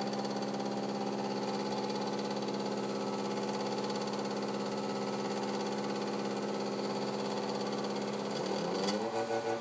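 DC motor running under PWM control through a MOSFET, giving a steady hum made of several tones. Near the end its pitch rises as the motor speeds up.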